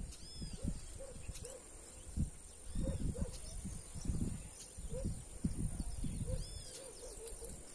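Birds chirping now and then over low rustling and thumps as a nylon cast net is handled and gathered for a throw.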